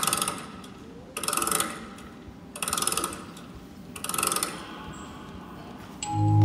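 A clockwork winding ratchet sound effect, four bursts of about half a second each, roughly one every 1.4 seconds, the sound of a wind-up toy being wound. Music with chiming, music-box-like notes and a low bass starts near the end.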